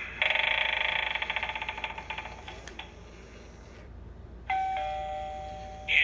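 Gemmy animated eyeball Halloween doorbell sounding through its small built-in speaker: a harsh, rapidly pulsing sound effect that starts suddenly and fades over about two and a half seconds, then, after a short lull, a two-note falling doorbell chime.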